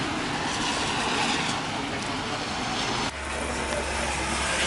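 Steady hiss of heavy rain and car traffic on a wet street. About three seconds in it cuts off abruptly to a quieter room with a low steady hum.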